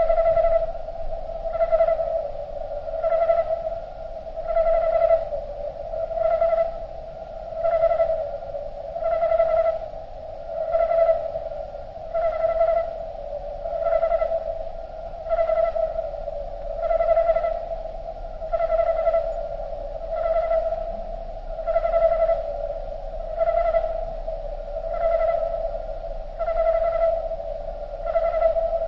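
Cricket chirping slowed down far below natural speed, stretched into a steady, drawn-out tone that swells in a regular pulse about every second and a half.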